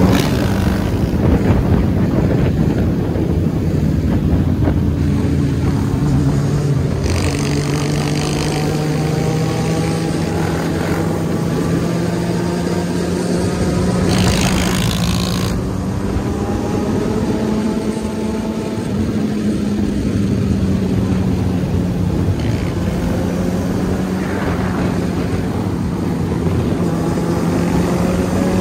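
Motorcycle engines of a riding pack cruising at highway speed: a steady engine drone whose pitch drifts slowly up and down, with two short rushes of noise, about seven and fourteen seconds in.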